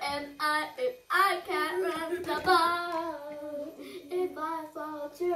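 A young child singing in a high voice without clear words, in short phrases with a longer held stretch in the middle.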